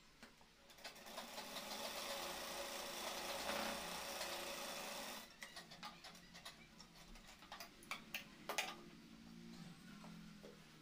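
Sewing machine stitching fabric in a fast, steady rattle for about four seconds, then stopping. A few separate sharp clicks and fabric rustles follow as the cloth is handled.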